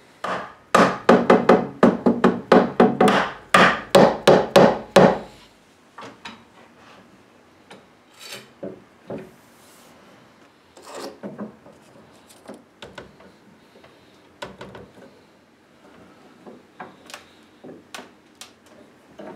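A mallet rapidly tapping a glued wooden drawer rail into its joint in the desk case, about four strikes a second for some four seconds. After that come scattered knocks and clicks of pipe clamps being set and tightened across the case.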